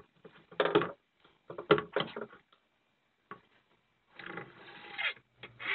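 Wood knocking and scraping in short bursts as plywood pieces and fixings are handled, then a longer scraping stretch near the end.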